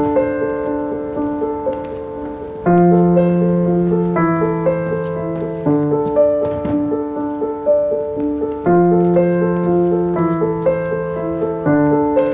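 Background piano music: a soft repeating figure over chords that change about every three seconds.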